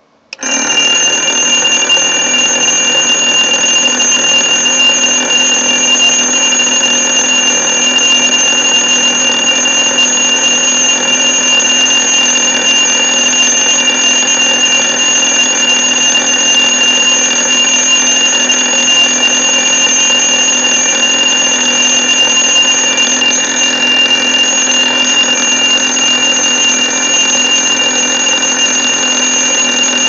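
Casio TQ-369-7E quartz alarm clock's alarm going off about half a second in and sounding on loud and steady without a break, a high-pitched electronic tone.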